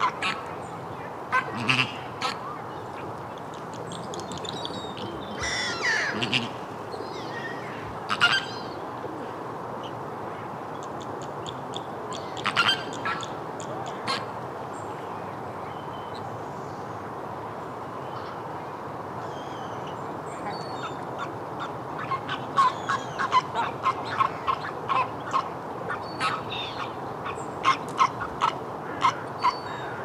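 A flock of Chilean flamingos calling: scattered groups of short honking calls, then a quicker, busier run of calls over the last third.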